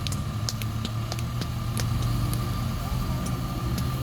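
An engine running steadily with a low hum and a thin steady whine above it, with scattered sharp ticks.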